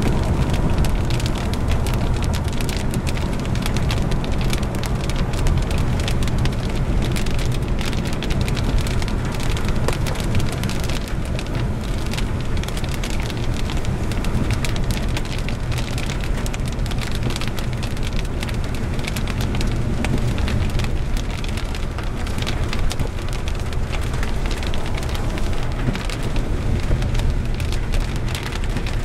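Wind and rain at an open car window under a tornadic storm: a steady rushing rumble with many small ticks of raindrops.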